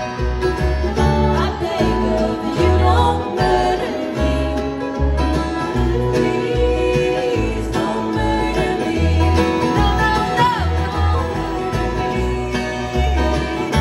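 Live bluegrass band playing: strummed acoustic guitar and a woman's lead vocal over a steady, regular bass line.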